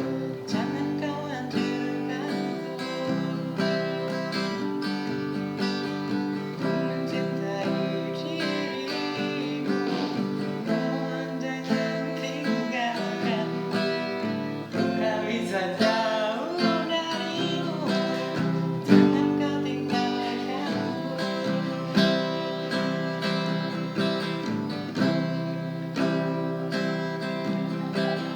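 Acoustic guitar strumming chords in steady music, with a voice singing at times.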